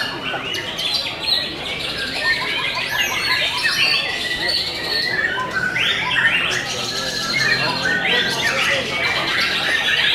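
White-rumped shamas singing together in a dense, unbroken stream of quick, varied whistles, chirps and rattles, with many phrases overlapping.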